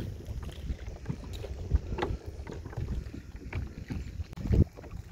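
A kayak under way on open water: water sloshing and splashing around the hull, wind rumbling on the microphone, and scattered short knocks, the loudest about four and a half seconds in.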